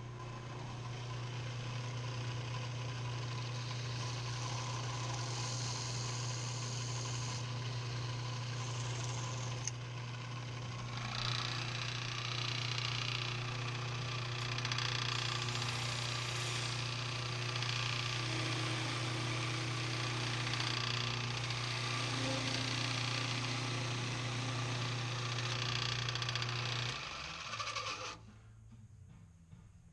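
Delta lathe running with a steady motor hum while a hand-held tool scrapes the spinning wooden file-handle blank, the cutting noise coming and going from about ten seconds in. The lathe switches off near the end.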